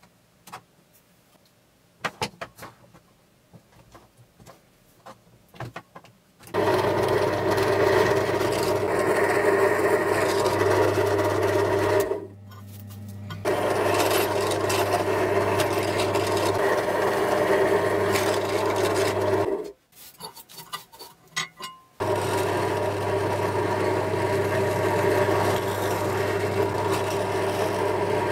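A few sharp handling clicks as a bar clamp is tightened, then a drill press running, its bit cutting into a metal bar, in three long runs: a steady motor hum with a metallic cutting sound on top. The machine stops briefly twice.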